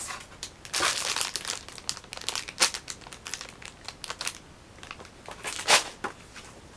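Plastic wrapper of a Kit Kat snack pack crinkling as it is handled, in irregular bursts, loudest about a second in and again near the end.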